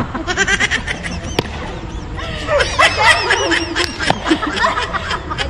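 Women laughing hard in quick repeated bursts of giggles, with a short lull about two seconds in before the laughter picks up again.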